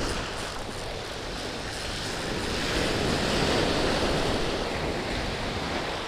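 Ocean surf breaking and washing up onto the sand, swelling to its loudest about halfway through as a wave comes in.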